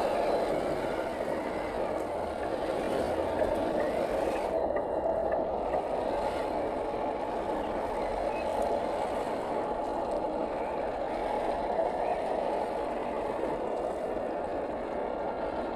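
Steady running of a 1/10-scale electric RC crawler's brushed 540 motor and gearbox as the truck drives slowly through thick mud.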